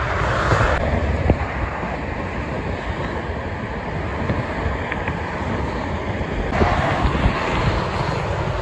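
Steady rush of road traffic, tyres and engines blending into one noise, with wind buffeting the microphone. The sound changes abruptly twice, about a second in and again about two seconds before the end.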